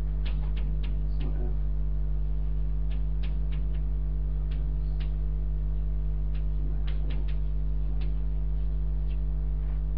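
Chalk tapping and scratching on a blackboard in short irregular strokes as words are written, over a steady electrical mains hum.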